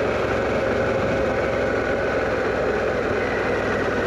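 Harley-Davidson Pan America motorcycle being ridden at a steady pace, its engine running evenly under a constant rush of wind and road noise.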